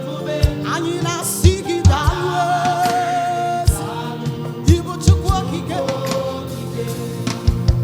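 Church choir singing gospel music with a live band, drum hits marking the beat under the voices. A long sung note with vibrato is held through the middle.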